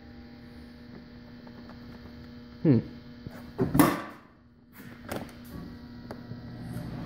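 Steady, quiet electrical hum, with a short falling squeak about two and a half seconds in and a few sharp knocks near the middle.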